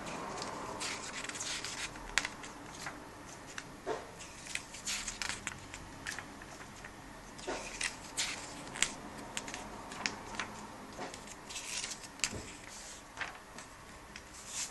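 Glossy paper pages of a comic book turned by hand, one after another: irregular crisp rustles and crackles of the paper, with a few sharper snaps.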